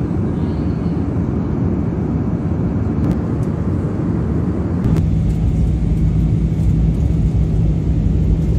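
Airliner cabin noise in flight: the steady low drone of the jet engines and airflow, with a steady hum joining about five seconds in.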